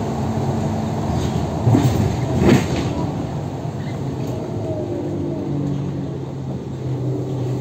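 A Mercedes-Benz O530G Citaro articulated city bus heard from inside while under way: the diesel engine runs and the ZF Ecomat automatic gearbox whines, steadier in the second half. A few knocks and rattles come about two seconds in.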